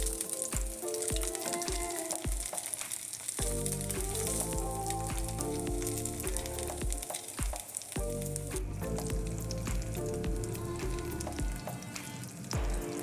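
Coated fish fillets sizzling steadily as they fry in oil in a pan, with scattered sharp clicks from the spatulas. Background music with a steady beat plays over it.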